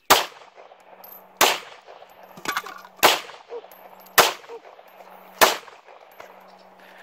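Handgun firing single shots at a steady pace, five in all, roughly one every second and a quarter.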